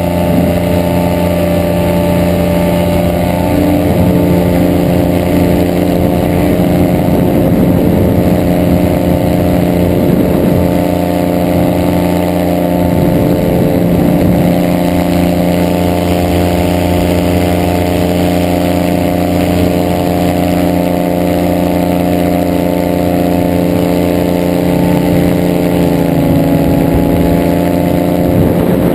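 Weight-shift trike microlight's engine running steadily at high power through the takeoff run and climb, easing slightly in pitch near the end.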